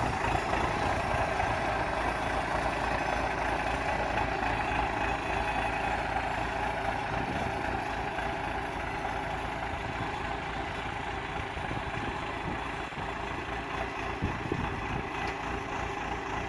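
An engine running steadily at idle, with a couple of faint knocks near the end.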